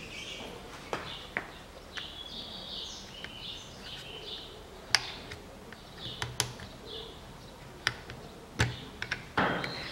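Scattered sharp plastic clicks and taps as the small lock motor is prised out of a Range Rover Evoque rear door-latch housing and lifted free, with faint bird chirps in the background.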